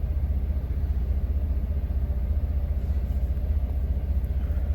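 Semi-truck's diesel engine running steadily, a constant low rumble heard from inside the cab.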